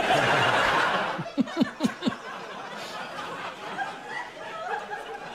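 Studio audience laughing, loudest in the first second, then tailing off to scattered laughs.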